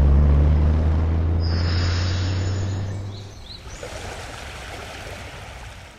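Low, steady engine drone that dies away about three seconds in, leaving an even outdoor rushing noise with a couple of faint high chirps.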